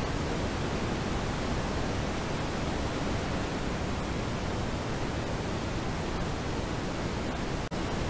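Steady road and running noise inside a moving car's cabin, picked up by the dashcam's microphone. It cuts out for a split second near the end, where the recording jumps between clips.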